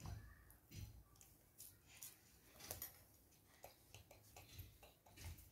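Faint, scattered light clicks and taps of a small spoon against miniature steel plates as cooked noodles are dished out.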